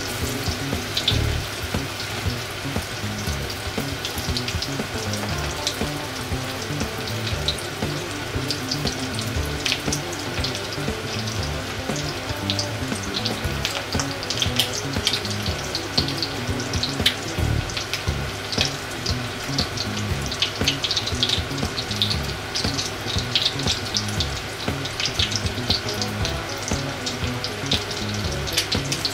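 Breaded pork cutlets with an okara-powder and koya-dofu coating shallow-frying in oil in a cast-iron skillet: a steady sizzle with frequent small crackles and pops, busier in the second half.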